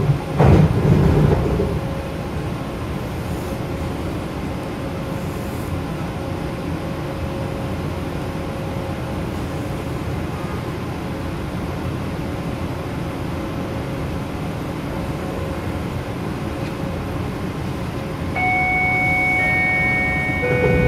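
Detroit People Mover car, an automated train driven by linear induction motors, standing at a station with a steady electrical hum. There is a thump just after the start. Near the end a whine of several steady tones comes in one after another as the propulsion powers up to pull away.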